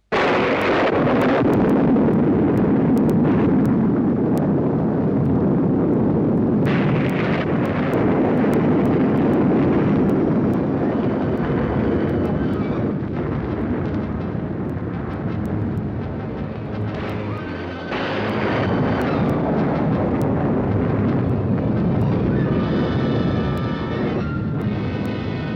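Loud, dense dramatic film score with a rumbling texture. Sustained pitched instrument chords come through near the end.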